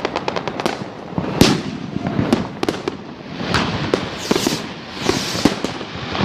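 Fireworks and firecrackers going off all around: a rapid string of cracks at the start, then loud scattered bangs and bursts of crackling, overlapping without a pause.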